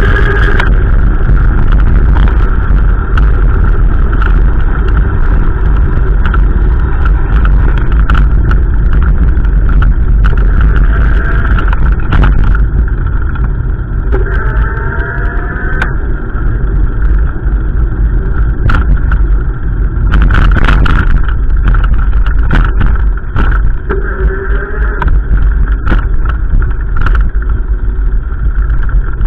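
Strong gusty wind buffeting the microphone: a loud, constant low rumble. Faint wavering tones come through twice, around the middle and again later.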